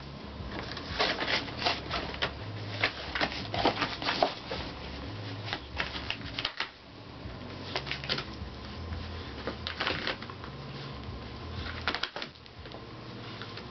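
A Pembroke Welsh corgi tearing and chewing a cardboard cereal box, an irregular run of ripping and crunching sounds with short pauses between bites.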